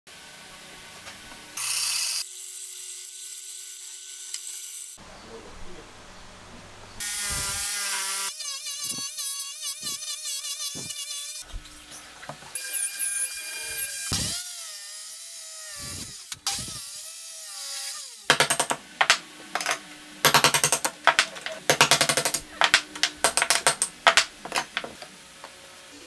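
Woodworking power tools cutting wood in short bursts, among them a drill press boring through a board with a hole saw, its pitch dipping and rising as it bites and frees. In the last third comes a quick run of sharp clicks and knocks.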